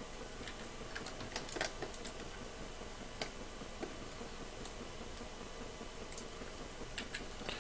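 Sparse, irregular clicks of a computer mouse and keyboard over a faint steady hum.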